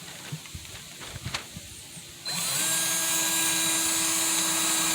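A few light knocks, then about two seconds in a power drill starts up and runs at a steady pitch, driving a 1-inch screw into half-inch plywood.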